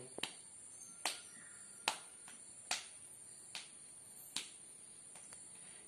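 Faint hand claps keeping the tala, the beat of a Carnatic song: six sharp, evenly spaced claps a little more than one per second, with no singing between them.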